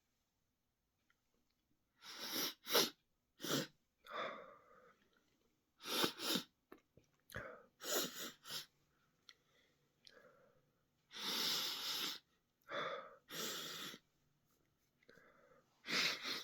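A man's sneezing fit: starting about two seconds in, a string of sharp sneezes comes in irregular clusters, several in quick succession, with one longer rasping burst about eleven seconds in.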